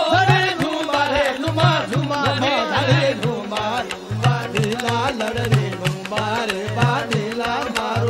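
Music: a gliding, ornamented melody over a steady drum beat of about three strokes a second.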